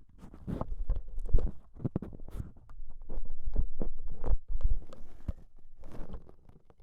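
A run of irregular soft thumps and knocks with low rumbling, close to the microphone, at an uneven pace, that stops abruptly at the end.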